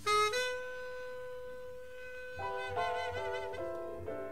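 Tenor saxophone in a live jazz quartet recording, holding one long note for about two seconds, then playing a short phrase of quicker notes with vibrato.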